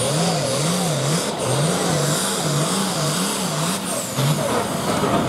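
A hot farm pulling tractor's 466-cubic-inch diesel engine running flat out under load as it drags the weight sled. A low hum wavers up and down nearly twice a second over the engine noise and stops about four seconds in.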